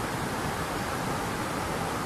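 Waterfall pouring steadily: an even, unbroken rush of falling water that holds the same level throughout.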